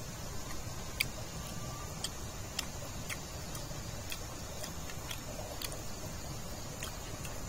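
Mouth clicks and smacks of someone chewing grilled meat off a skewer, sharp and irregular at about one or two a second, over a steady background hiss.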